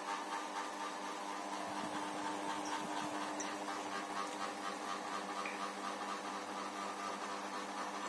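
GMC FC08-80 mini ceiling fan running steadily: a hum of several steady tones over an even rushing noise.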